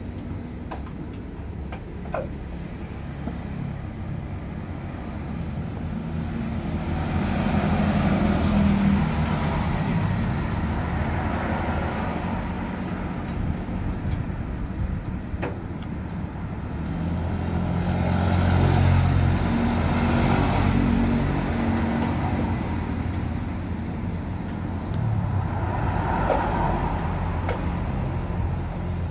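Road traffic passing, with vehicles swelling up and fading away about three times over a steady low hum. A few light metallic clicks from hand work sound in between.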